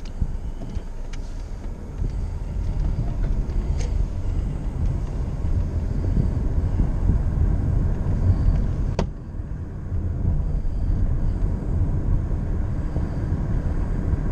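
Car driving: steady road and engine rumble heard from inside the cabin. It dips briefly with a single click about nine seconds in.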